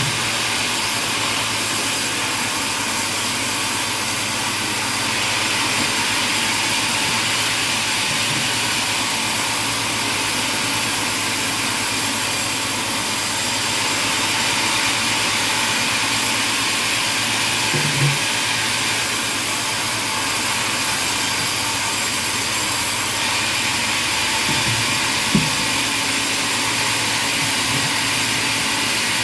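Sawmill machinery running with a steady, even mechanical noise, broken twice by a short knock.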